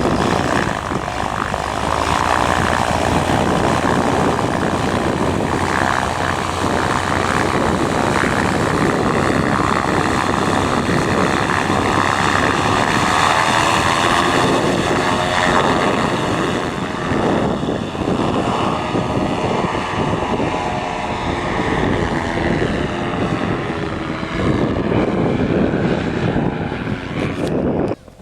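Paramotor engine and propeller running under power, the pitch drifting up and down. It cuts off abruptly near the end.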